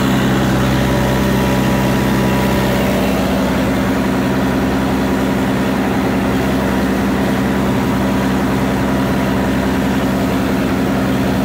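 Farm tractor engine running steadily as it drags a heavy wooden beam that levels poultry litter.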